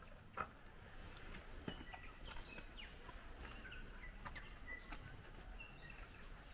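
Faint bird chirps: many short, high calls scattered throughout, over quiet outdoor background noise, with a couple of soft clicks in the first two seconds.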